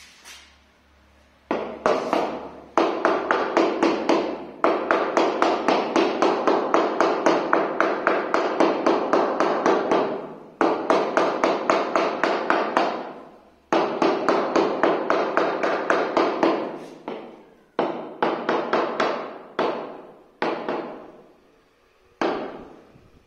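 Rapid tapping on a polished granite strip with a hand tool, about five strikes a second, each with a short ringing tone. The taps come in runs of a few seconds with brief pauses, bedding the strip into its mortar.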